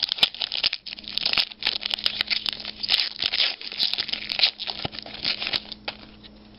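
A trading-card pack's foil wrapper being torn open and crinkled by hand, a busy crackling that stops about six seconds in.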